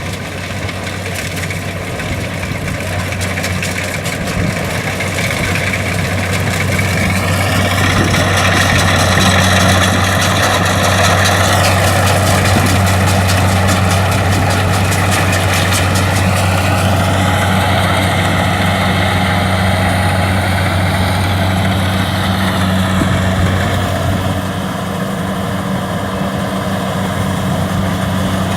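Kubota DC-70 combine harvester running steadily: a low diesel drone under a higher mechanical whine. The whine rises in pitch twice and drops once in between, as the machine's speed changes.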